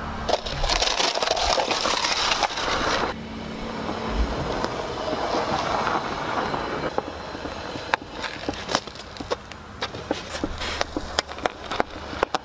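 Car tyre rolling over snow and crushing small toys: a steady crunching noise for the first few seconds, then many sharp cracks and crackles in the last four seconds.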